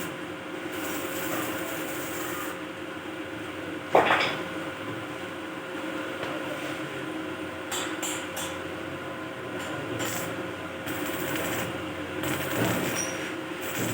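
Workshop sounds of metal grill work: a steady background hum with one sharp knock about four seconds in and a few lighter clicks and taps later.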